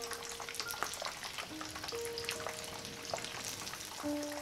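Hot oil crackling and sizzling around breaded pork meatballs deep-frying in a pan, with many small scattered pops. Soft background music with long held notes plays underneath.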